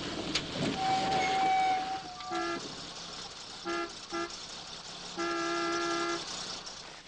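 An old car's horn honking: a short toot, two quick toots, then one long blast. A click and a steady high tone come before it, about a second in.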